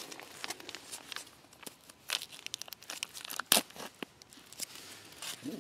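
MRE entrée retort pouch being torn open by hand, with the crinkling and ripping of the stiff foil-laminate packaging; a sharp crackle stands out about three and a half seconds in.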